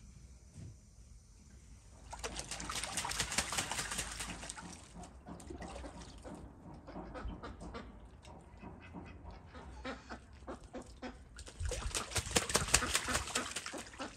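A white duck bathing in a water-filled tub, splashing water in two spells, one about two seconds in and one near the end, with scattered farmyard fowl sounds between them.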